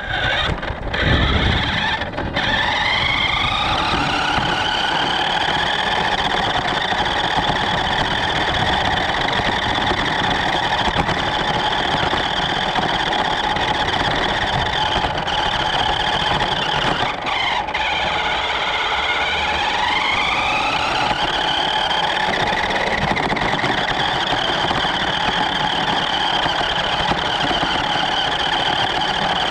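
Electric motor and gearbox of a New Bright 1:14 RC Polaris Ranger toy car whining as it drives. The whine rises in pitch as the car speeds up in the first few seconds, then holds steady. It drops sharply about 17 seconds in and climbs back up a few seconds later as the car slows and speeds up again.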